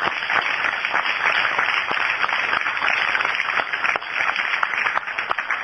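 Audience applauding at the close of a talk: many hands clapping in a steady, dense patter.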